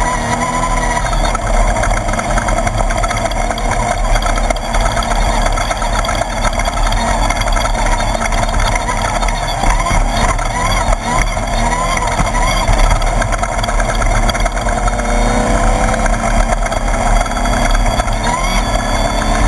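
Class 1/2-1600 desert race buggy's air-cooled 1600cc VW engine running hard, its pitch wavering up and down and climbing near the end, over a dense rushing noise.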